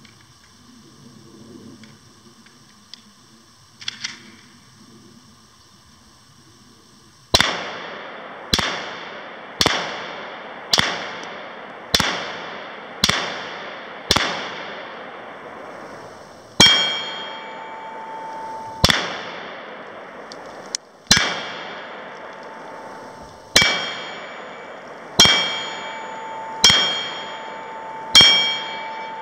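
7.62x39 AK-pattern rifle shots, each ringing a steel target plate, which keeps ringing and then dies away. About seven seconds in comes a steady string of about seven shots a little over a second apart, then after a short pause about seven more at a less even pace.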